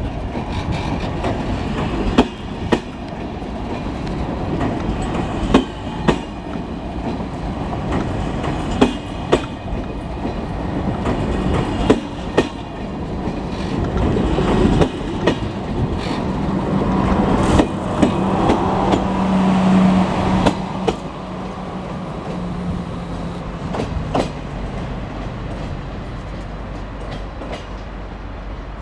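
SNCF TGV Atlantique high-speed trainset pulling out, its articulated cars rolling past close by with a steady rumble. The wheels click in pairs over a rail joint about every three seconds, coming a little faster as the train gathers speed. A steady hum swells and fades in the middle, then the noise falls away as the end of the train moves off.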